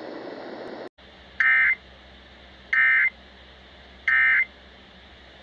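EAS end-of-message signal: three short bursts of SAME digital data tones, sent about a second and a half apart, marking the close of the alert message.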